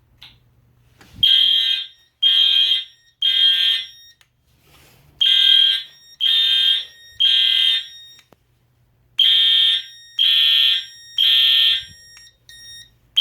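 Fire alarm horns sounding the code-3 temporal evacuation pattern after the pull station is pulled: three loud, high beeps about a second apart, a pause, and the group repeating three times, with a fourth group starting at the very end. A short clunk comes just before the first beep.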